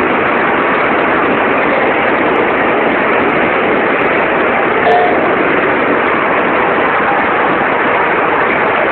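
Steady machinery noise of a bottle packaging line running, conveyors and machines going without pause, with a short click about five seconds in.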